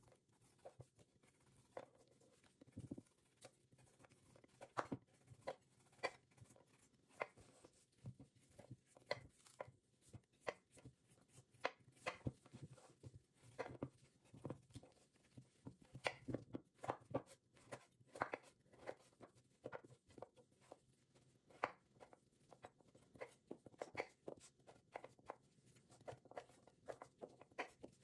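Chef's knife peeling and cutting a raw rutabaga on a wooden cutting board: irregular scraping strokes through the hard root and light knocks of the blade on the board.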